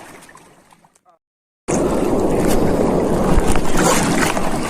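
Noise fades away into a brief dead silence, then a steady rush of wind and sea water on the microphone cuts in abruptly and stays loud, with a few faint splashes or clicks.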